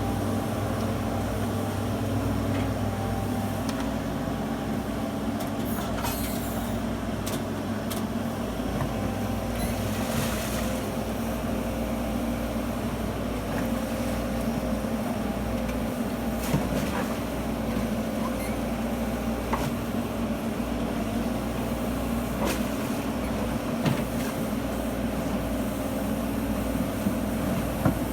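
Menzi Muck M220 walking excavator's diesel engine running steadily, with a few sharp clanks from the machine working.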